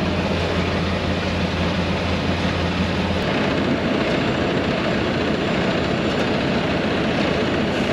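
Steady engine running noise, with a low hum under it that stops about three seconds in.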